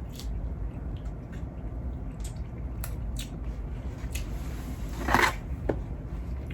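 Close-up eating sounds of seafood: soft wet squishes and small mouth clicks, with one louder crackle a little after five seconds in.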